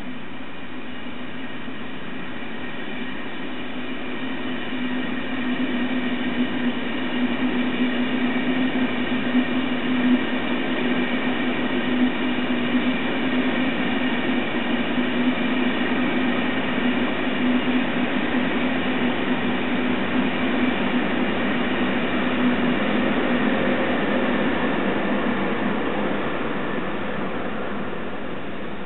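ÖBB railjet passenger train rolling past: a steady rumble with a constant hum and a few held higher tones, growing louder about five seconds in and easing off near the end.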